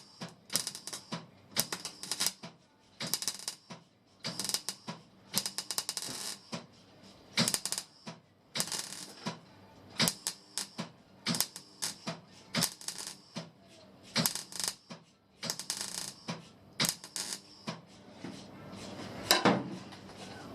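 Welding arc on the car's sheet-steel floor panel, crackling in many short, irregularly spaced bursts, each under a second, with brief pauses between them.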